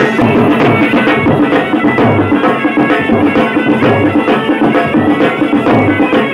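Loud traditional folk dance music: a sustained melody instrument over a steady, repeating drumbeat.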